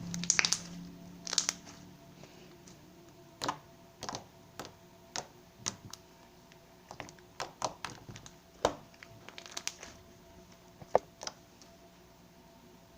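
Slime being squeezed and pressed by hand, making irregular sticky clicks, pops and crackles, a few of them louder with a short hiss.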